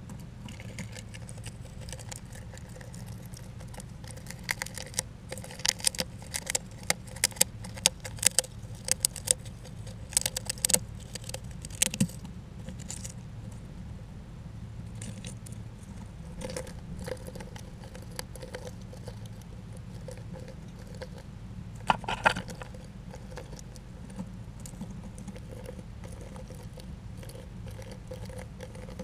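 A small rodent, chipmunk or squirrel, working at a pumpkin feeder: a dense run of sharp clicks and taps for several seconds from about four seconds in, then a short cluster about two-thirds of the way through, over a steady low hum.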